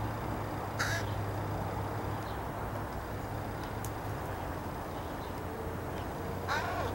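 Young crows giving two short harsh calls, one about a second in and one near the end, over a steady low background hum.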